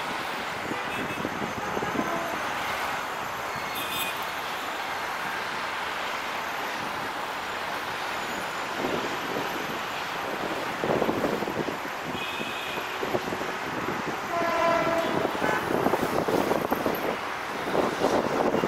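Steady city traffic noise with a few short horn toots, the clearest about three-quarters of the way through. A louder rumble builds over the last few seconds as a diesel-hauled passenger train approaches.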